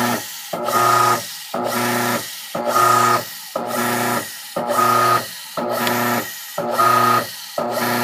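Washing-machine drive motor on a test bench, driven by a Maytag/Whirlpool control board in its wash stage: it hums in short bursts about once a second, with brief stops between, going back and forth as in agitation.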